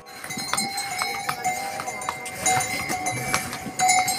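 Hooves of a mule clopping on a stone path, with the bells on its harness ringing steadily as it walks.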